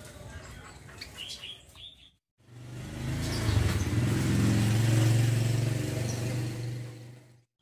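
A caged female kecial kombo songbird gives a few short, high chirps in the first two seconds. After a brief break, a motor vehicle's engine hums loudly, swelling and then fading over about five seconds.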